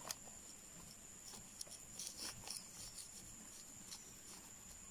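Bamboo stick pushed into loose potting soil in a plastic nursery bag to make a planting hole for a durian seed: faint, scattered scrapes and crunches of soil. A steady high-pitched insect drone sounds behind it.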